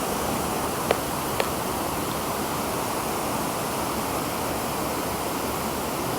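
Steady rush of creek water, an even noise, with two faint short clicks about a second in.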